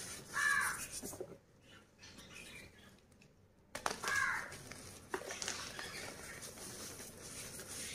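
Gym chalk crumbled and squeezed in bare hands: dry, powdery crunching with small crackles. It goes quieter for a couple of seconds, then a sharp crack a little under four seconds in as a piece breaks. A short animal call sounds twice over it, about half a second in and about four seconds in.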